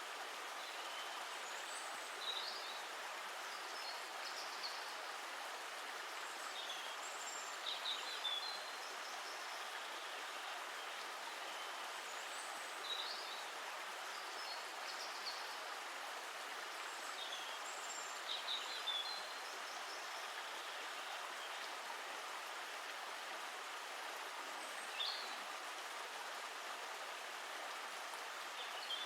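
Stream of water running steadily, with birds chirping briefly now and then over it.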